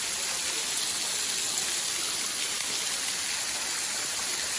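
Steady rushing of a waterfall and its splashing water.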